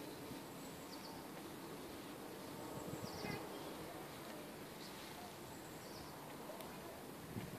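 Faint outdoor garden ambience: a low steady hum of insects, with a few short high bird chirps about a second, three seconds and five seconds in.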